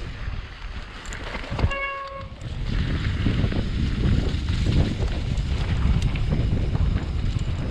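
Trek Slash 8 full-suspension mountain bike ridden down a rough, wet trail: tyre rumble and frame rattle, with wind buffeting the microphone. The riding noise drops for a couple of seconds, and in that lull, about two seconds in, there is a short high squeal.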